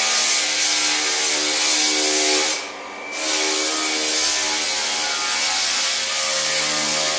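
Electric drum floor sander running across old wooden floorboards: a steady motor hum under the hiss of the sanding drum on the wood. The sound drops away for under a second about two and a half seconds in, then resumes.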